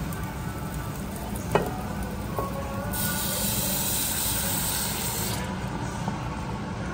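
A single sharp clink about a second and a half in. About three seconds in, dark sukiyaki sauce is poured into the hot pot of fried onions and garlic, setting off a loud, bright hissing sizzle that fades after about two and a half seconds.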